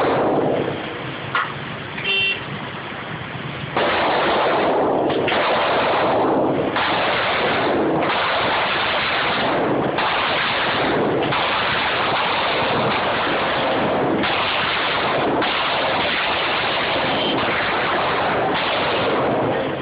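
A string of Glock pistol shots in an indoor range, about ten over fifteen seconds, each starting sharply. The recording is overloaded, so each shot's ringing echo runs into the next.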